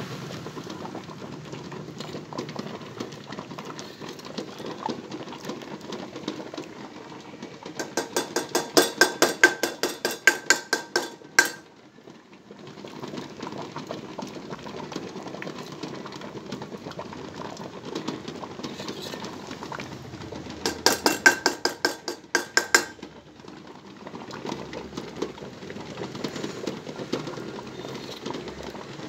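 Metal spoon stirring and scraping thick, crystallized honey in a small stainless steel bowl set in a hot-water bath. Twice the stirring speeds up into rapid clinks against the side of the bowl, about four a second for a few seconds each, over a steady hiss.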